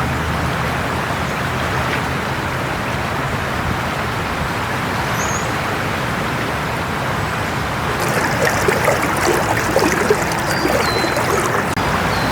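Steady rush of fast-flowing floodwater. About two-thirds of the way through, the sound changes abruptly to a louder, splashier crackle of water.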